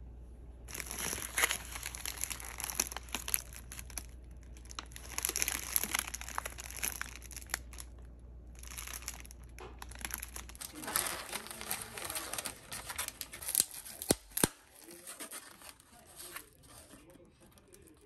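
Plastic packaging on a pack of natto containers crinkling and rustling in bursts as it is handled, then torn open. Near the end come a few sharp clicks as the containers are pulled apart and opened.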